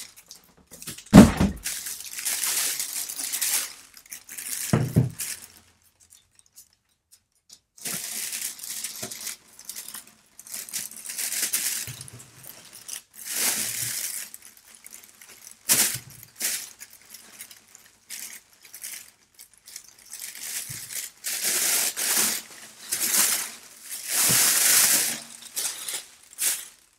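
Cardboard and packing material rustling and scraping as a snare drum is unpacked from its box, in repeated bursts, with a sharp knock about a second in and another around five seconds in.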